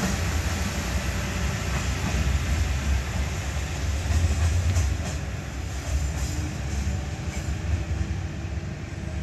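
Kyoto Tango Railway KTR300 diesel railcar pulling out, a steady low engine and wheel rumble that eases off somewhat in the second half, with a few faint clicks from the wheels over the track.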